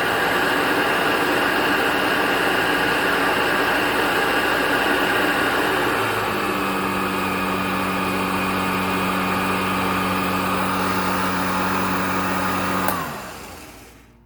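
Hoover Junior 1348 direct-air upright vacuum cleaner running with a steady hum and whine. About six seconds in its sound shifts and a lower hum comes in; near the end it is switched off and winds down. The owner is not sure it is running quite right, even with both motor bearings freshly greased.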